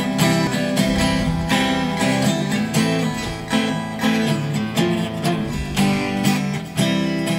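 Acoustic guitar strummed in a steady rhythm, with no singing.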